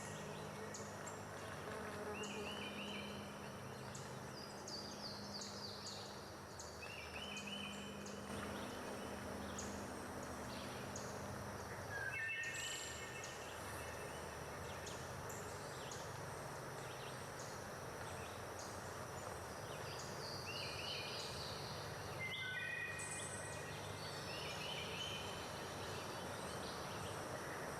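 Outdoor ambience of birds calling in short repeated phrases every few seconds, over a steady high insect drone.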